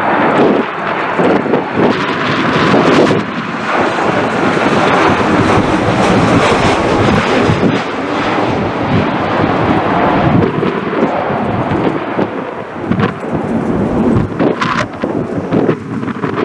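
Jet noise from a Boeing 737 MAX 8's CFM LEAP-1B engines on landing: a loud, steady noise with wind buffeting the microphone throughout.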